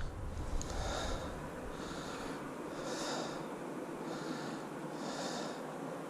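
A person breathing close to the microphone: soft hissing breaths recurring about every second or two.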